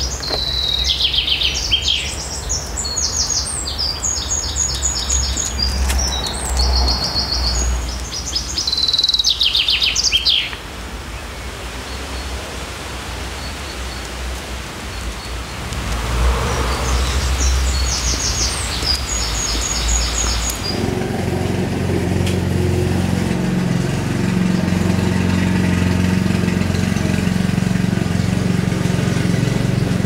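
Songbirds singing in two spells of rapid high chirps over a low outdoor rumble. About two-thirds of the way in, the sound cuts to a petrol lawn mower engine running steadily.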